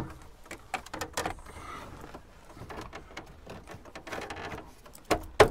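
Plastic dash trim of a 2005 Chevy Silverado being handled and pressed into place around the gauge cluster: scattered light clicks and knocks of plastic on plastic, with a few sharper clicks about five seconds in.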